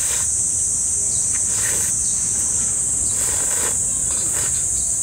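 Cicada chorus: a loud, steady, high-pitched drone that holds without a break.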